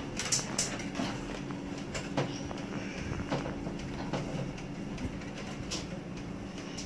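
Steady low background hum with a few light clicks and taps scattered through it, from handling a plastic bottle of liquid soap as it pours a thin stream into a glass bowl.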